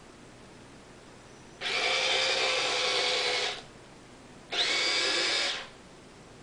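Small electric motor of a Sharper Image Feline Frolic Mouse cat toy whirring in two bursts, the first about two seconds long and the second, about a second later, about one second long.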